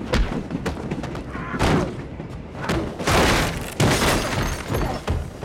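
Fight sound effects: several heavy thuds and crashes as bodies slam into furniture, with breaking and shattering. The biggest crash comes about three to four seconds in.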